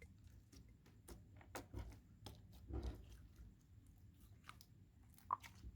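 Faint, irregular sticky clicks and soft squishes of homemade water, salt and Vaseline slime being pressed and handled, with one sharper click about five seconds in.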